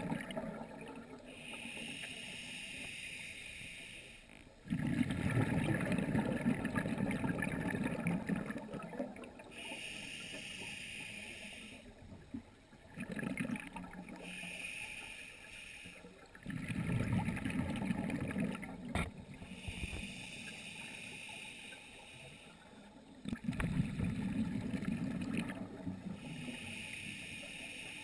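Scuba diver breathing through a regulator underwater, heard through the camera's dive housing. A hissing inhale alternates with a long, rumbling rush of exhaled bubbles, four breaths about every six to seven seconds.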